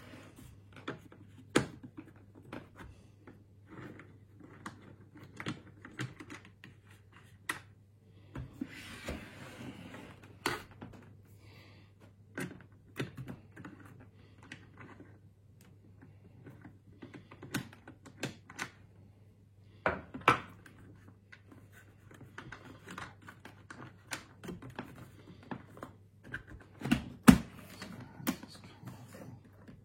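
Irregular plastic clicks, knocks and rattles from handling the visor of an HJC C80 flip-front motorcycle helmet while trying to remove it, with a short rustle about nine seconds in. A steady low hum lies underneath.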